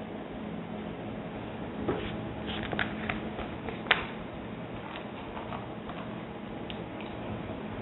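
Steady low room hum with a handful of light clicks and knocks between two and four seconds in, the sharpest just before four seconds.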